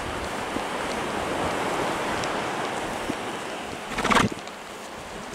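Steady wash of surf and wind on the beach, with one short, loud, fluttering horse snort about four seconds in.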